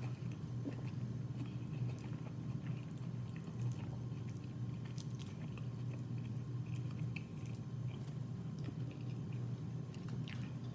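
A person chewing and biting into seafood boil food close to the microphone, with small wet crunches and clicks, over a steady low hum.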